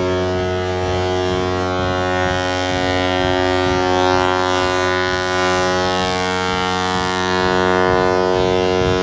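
Ship's horn sounding one long, steady blast: a deep tone with many overtones that cuts off at the very end.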